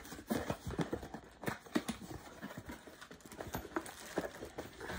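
Cardboard product box being handled close to the microphone: a run of irregular taps and knocks.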